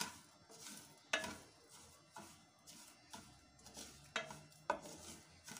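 Wooden spoon stirring and scraping dry sugar around a metal saucepan on the heat, with sharp knocks against the pan about once a second as the sugar is cooked toward caramel for a sauce.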